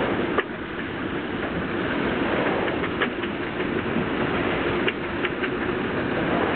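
Strong wind on the microphone and water rushing along the hull of a sailing yacht under way in rough seas, a steady loud rush with a few sharp ticks scattered through it.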